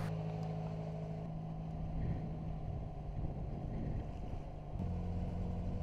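A Tartan 37 sailboat's inboard engine running steadily at slow speed, a low even hum over light water wash. The hum grows louder and fuller about five seconds in.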